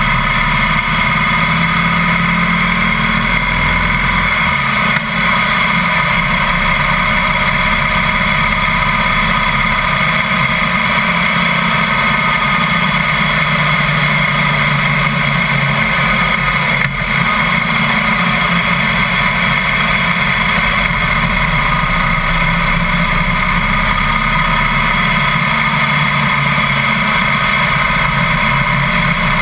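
Harley-Davidson Heritage Softail's V-twin engine running steadily at a cruise, mixed with constant wind and road noise from the moving motorcycle.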